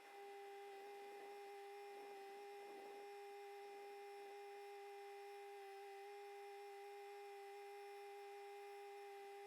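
Near silence with a faint, steady hum made of a few unchanging pure tones.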